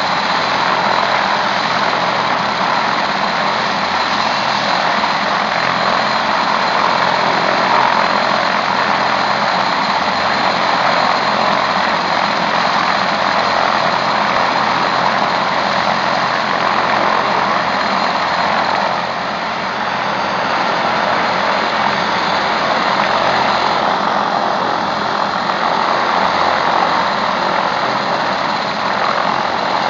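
MBB Bo-105 helicopter's twin turboshaft engines and main rotor running steadily on the ground, a high steady turbine whine over the rotor noise.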